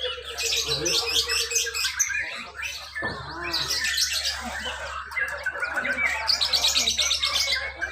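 Many caged lovebirds chirping and chattering together in a dense, rapid run of high calls, over a steady low hum.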